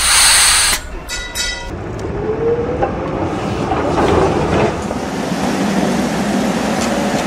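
Electric tram pulling away and running: a sharp hiss at the start, a brief ringing, then a rising motor whine that settles into a steady rolling rumble.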